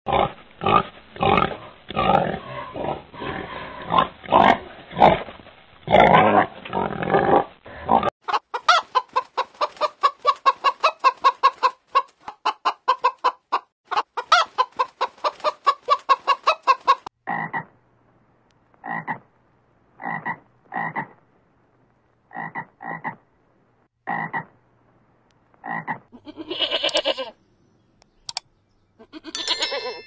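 A run of farm animal calls. First, for about eight seconds, pigs grunting. Then a frog croaking in a fast pulsing trill for about nine seconds, then chickens clucking in single calls a second or two apart, with one longer call near the end.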